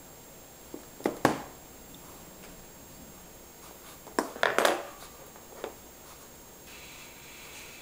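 A toddler's small metal fork clinking and knocking against her bowl and high-chair tray: a few sharp clicks about a second in, a louder cluster of clinks around four and a half seconds, and one more a second later.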